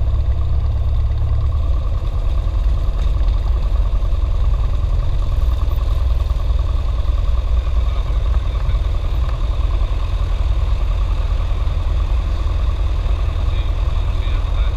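Cessna 172's piston engine and propeller running steadily at low taxi power, a continuous low drone heard from inside the cockpit.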